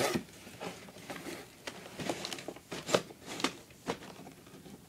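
Cardboard toy box being handled: scattered light knocks, taps and rustles, with the loudest knock right at the start.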